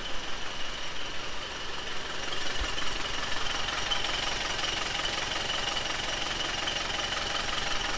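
Land Rover 200Tdi 2.5-litre four-cylinder turbodiesel idling steadily just after a glow-plug start, with a constant high whine over it that the owner puts down to a belt needing adjustment.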